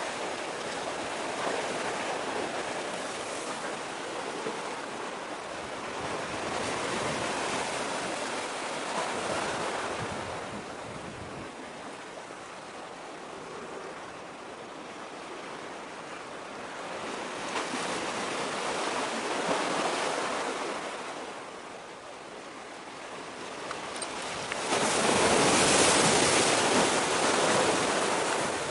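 Sea waves washing against a breakwater of concrete armour blocks, a noisy rush that swells and eases every few seconds, loudest near the end.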